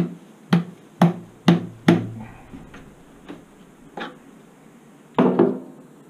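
Wooden knocks as the wooden boards of a beehive are handled: five sharp knocks about half a second apart, a few lighter taps, then a heavier clatter of knocks about five seconds in as a cover board is lifted off and set down.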